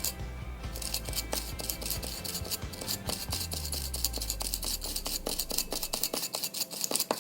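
Small brush scrubbing corrosion off a remote control's battery spring contact: quick scratchy strokes, several a second, that stop abruptly at the end. Low background music underneath.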